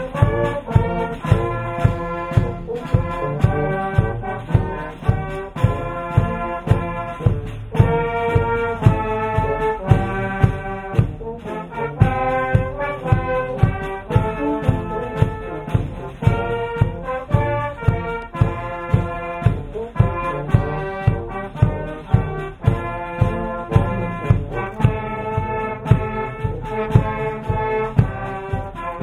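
Brass band playing a march: sustained brass melody over a steady, regular drum beat.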